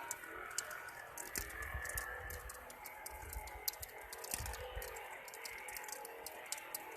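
Faint, unexplained trumpet-like drone in the sky: several steady tones held together. Rapid, irregular sharp high clicks run over it, with a few brief low rumbles.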